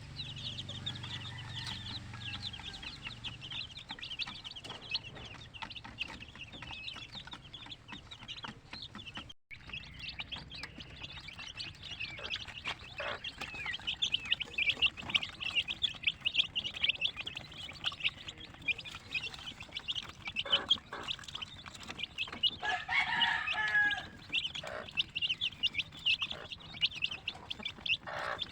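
A flock of young Aseel x native crossbred chickens peeping continuously in rapid, high chirps, with a few lower clucks mixed in. The peeping breaks off for an instant about nine seconds in, then comes back louder.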